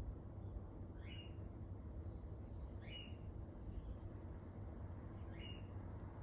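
A pet bird in the flat upstairs calling faintly through the ceiling: three short rising chirps, about two seconds apart.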